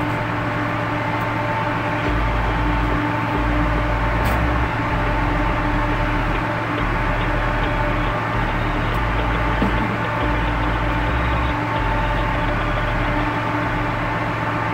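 Ship's machinery running with a steady, unchanging hum, a constant tone held in it.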